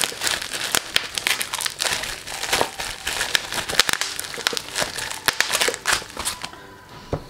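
Plastic bubble wrap being pulled off a cardboard box and crumpled by hand, a dense run of crinkles and crackles that thins out about six seconds in.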